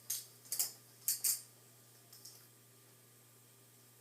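A few sharp plastic clicks and clatters in the first second and a half, as toy gun ammunition pieces are handled and snapped together; after that only a faint steady hum.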